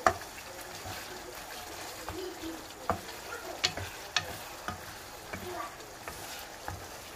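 Wooden spatula stirring thick sardine sambal in a pan, knocking and scraping against the pan several times, the loudest knock right at the start, over a faint sizzle of the simmering sauce.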